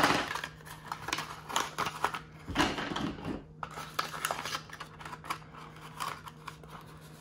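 Accessories and packaging being handled: a USB-C cable and fabric carrying strap rustling and clicking as they are put back into a cardboard earbuds box. The sound comes in irregular bursts, loudest at the start and again about two and a half to three and a half seconds in, over a faint steady hum.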